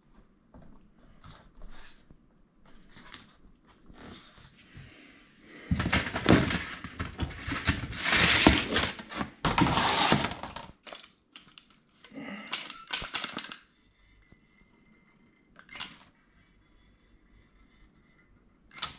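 Work-handling noises: about five seconds of loud rustling and scraping in the middle, then a quick run of sharp clicks as a sealant gun is picked up and worked, with a few single clicks after.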